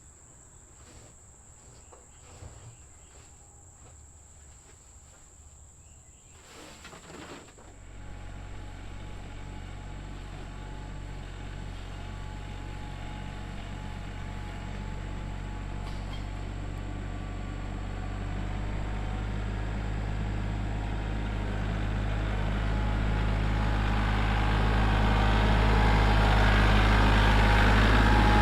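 Crickets chirping steadily. About seven seconds in, a tractor engine starts up and runs with a steady low hum, getting steadily louder.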